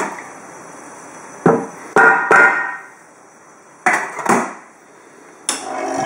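Several sharp knocks, each with a short metallic ring. About five and a half seconds in, the home-made espresso machine starts a steady humming run, its pump working.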